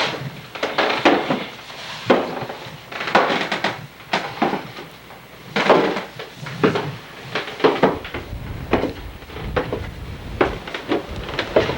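Irregular knocks and clatters, about one a second. From about two-thirds of the way through, a low rumble of wind on the microphone joins them.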